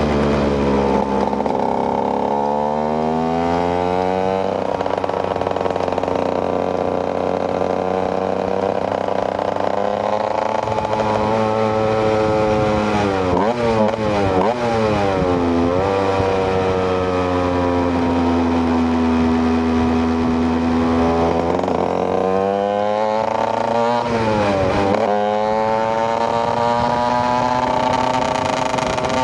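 KTM EXC 125's single-cylinder two-stroke engine under way, its revs climbing and dropping through the gears with steadier cruising stretches between. There are quick runs of rising and falling revs around the middle and again near the end.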